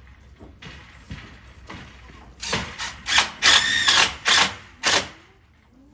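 Newborn goat kid bleating loudly in a quick run of five or six short, high cries, the middle one held a little longer, while being handled.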